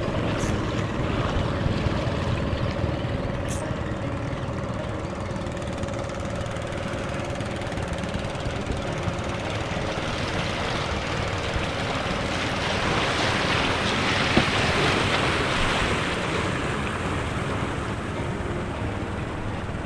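Sea waves washing against the rocks of a breakwater, with the steady hum of a boat motor out on the water through roughly the first half. The wash swells louder for a few seconds past the middle.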